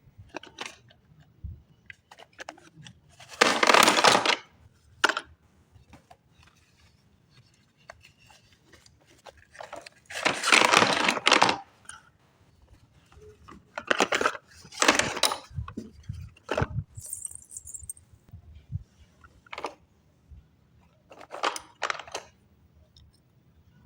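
Slate pencils and their packaging handled during unboxing: about four loud bursts of crackling, clinking handling noise of a second or so each, with small clicks and taps in between.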